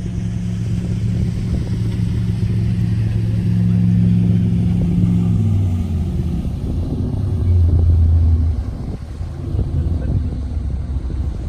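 The Disney Dream cruise ship's musical horn sounding a tune: a low chord held for about five seconds, then a change of notes, and a lower, loud note that stops about eight and a half seconds in.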